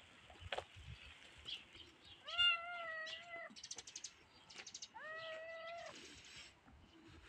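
A small grey cat meows twice. Each meow is drawn out, about a second long, and the two come about a second and a half apart.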